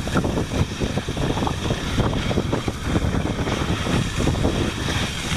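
Wind buffeting the microphone of a handheld camera carried by a moving cross-country skier, mixed with irregular scraping of skis on snow.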